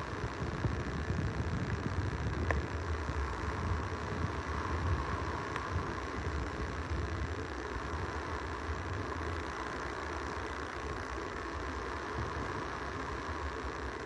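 Small waves breaking and washing up on a sandy beach, with wind rumbling on the microphone; the rumble is strongest for the first nine seconds or so and then eases.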